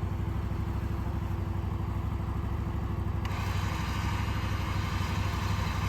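A small engine idling steadily with a fast, even pulse. About three seconds in, a steady higher hiss joins it.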